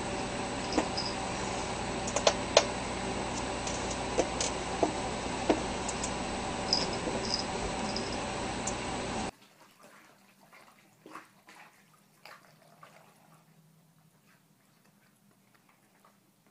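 A steady mechanical room hum with scattered sharp clicks and taps. About nine seconds in it cuts off suddenly to a much quieter room with faint soft taps and rustling.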